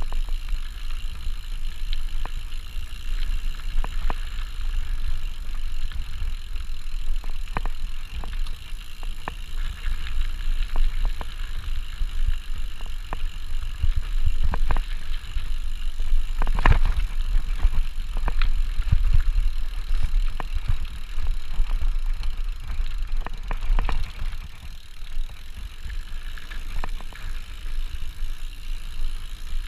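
Mountain bike riding fast down a dirt trail, with wind rumbling on the microphone and tyre noise over the ground. Scattered rattles and knocks come from the bike over bumps, the sharpest about 17 seconds in.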